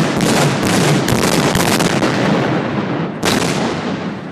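Explosive charge detonating against a gun safe: a loud, crackling blast that carries on, with a second sharp blast about three seconds in, then dying away.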